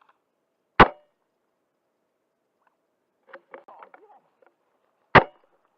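Airsoft sniper rifle firing two shots about four and a half seconds apart, each a single sharp crack, with a short rattle of clicks between them.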